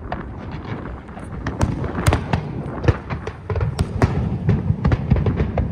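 Aerial fireworks bursting in quick succession: a dense run of sharp bangs and crackles over a low rumble, getting a little busier after the first second or two.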